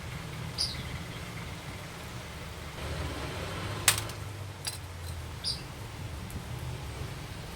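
A sharp click just before four seconds in, then a few fainter clicks and short high chirps, over a steady low hum.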